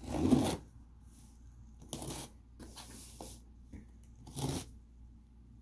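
Scissors cutting into cardboard and tape packaging, with rustling of the material: a loud cut at the start, then three more short cuts and rustles about 2, 3 and 4.5 seconds in.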